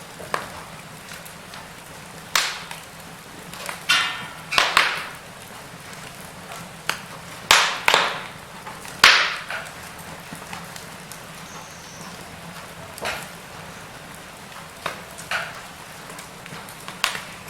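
Logs burning in a fireplace, crackling with irregular sharp pops over a steady low hiss. The loudest pops come about halfway through.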